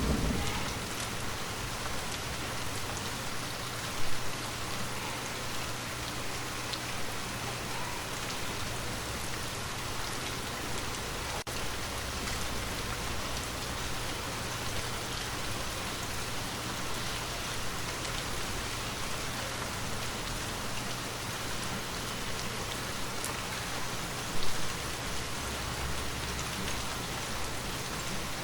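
Steady rain falling, an even hiss of drops on surfaces, with the last of a low thunder rumble dying away in the first second. The rain swells briefly twice, about 4 and 24 seconds in.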